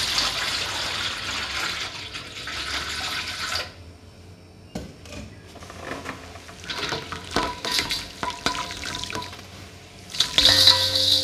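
Water pouring steadily into a stainless steel bowl, stopping about three and a half seconds in. Then a soft, dusty half-moon-shaped block is squeezed and crumbled by hand into the water, with scattered crackles and small splashes, and a louder burst of splashing near the end.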